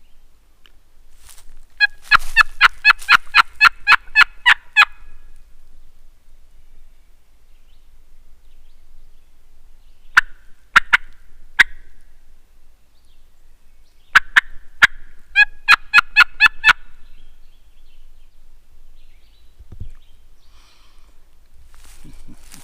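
Turkey call worked to imitate a hen: a loud, quick run of about eleven yelps, three single notes about ten seconds in, then two more runs of yelps, calling to draw a reply from a gobbler.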